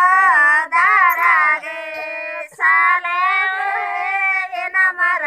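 Women singing a Kannada Gowri festival folk song unaccompanied, high voices holding long wavering notes in phrases broken by short pauses for breath.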